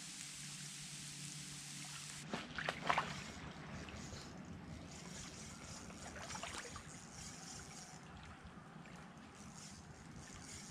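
Faint lakeshore ambience: gentle water lapping at the shore. A steady low hum in the first two seconds cuts off, followed by a few soft clicks and knocks.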